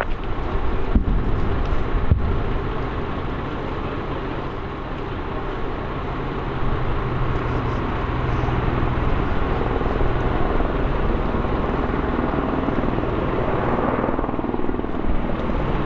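AS532 Cougar twin-turbine military helicopter approaching in flight: a steady rotor and engine noise with a low hum underneath.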